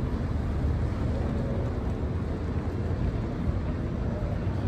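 Steady low rumble of wind buffeting the microphone, over city street noise.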